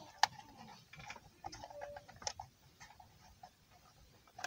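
Light, scattered clicks and taps from handling toys and their boxes on a store shelf, with a sharper click about a quarter second in and another a couple of seconds later.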